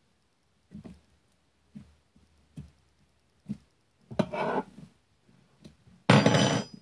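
A spoon poking and stirring stored slime in its container: soft taps and squishes about once a second, a longer scraping squish past the halfway point, and a short loud burst of handling noise near the end.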